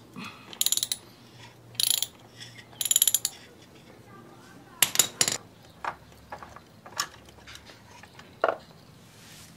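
Ratchet wrench clicking in three short rapid bursts as bolts are turned out on a motorcycle, followed by a few louder clicks and single knocks of tool and parts being handled.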